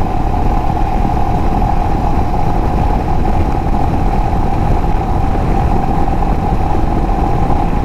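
Royal Enfield Himalayan motorcycle running steadily at cruising speed, with a constant rush of wind noise over the microphone and a steady mid-pitched hum.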